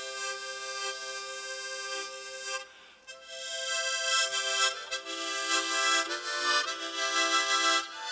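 Four harmonicas held together and played as one, giving a slow melody in full chords with harmony. The playing breaks off briefly about three seconds in, then comes back louder.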